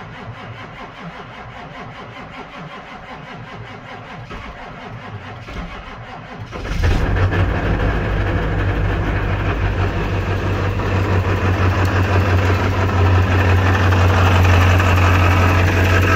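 Ford 7.3 Powerstroke turbo-diesel V8 starting about six and a half seconds in, then idling loudly and steadily in neutral. The idle carries the bad-sounding noise from the bell housing, which the owner thinks is in the E4OD transmission, because it goes away when the transmission is put in gear.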